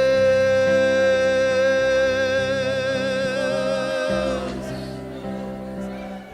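Gospel worship song: a single voice holds one long sung note over sustained instrumental chords, the note fading out about four and a half seconds in while the accompaniment carries on softly.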